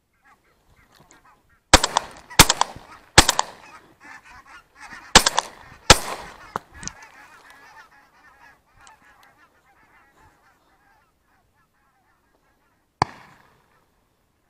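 Shotgun shots at a flock of geese: five loud shots in quick succession over about four seconds, starting a little under two seconds in, then one more near the end. Geese honk throughout.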